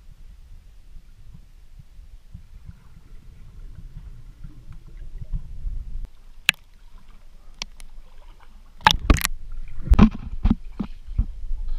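A low rumble, then a few sharp clicks, and from about nine seconds in a run of loud knocks and thumps.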